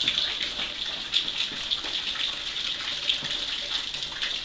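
Floodwater rushing steadily, a constant splashing hiss with many small ticks through it.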